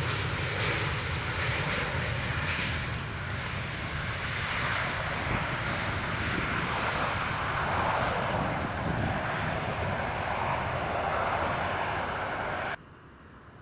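KLM Embraer 195 airliner arriving to land: a steady rushing roar from its turbofan engines, loudest about two-thirds of the way through, cutting off suddenly near the end.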